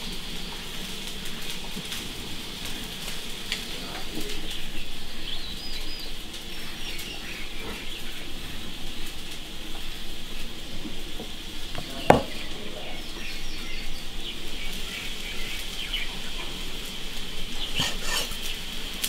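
Food sizzling in a hot wok, a steady hiss, with one sharp knock about twelve seconds in. Birds chirp in short bursts over it.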